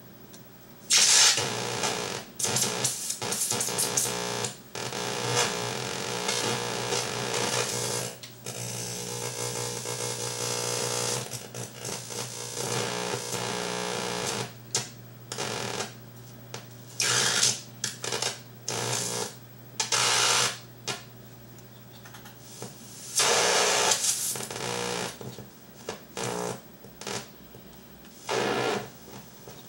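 Home-built battery-powered analog noise generator sounding through its output cable: irregular bursts of hiss and buzzing electronic tones that start and cut off abruptly as fingers touch the circuit, some short, some several seconds long, over a steady low hum.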